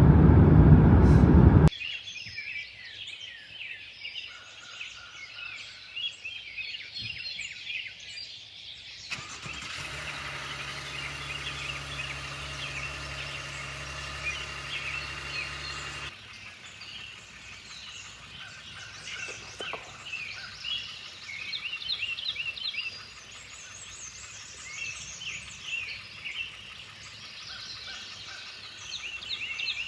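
Woodland birds chirping and singing, many short calls overlapping. A loud noise fills the first second or two and cuts off suddenly, and a steady hiss with a low hum runs from about 9 s to 16 s, starting and stopping abruptly.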